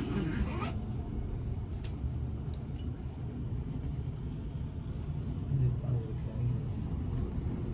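Steady low rumble, with a brief snatch of voice in the first second.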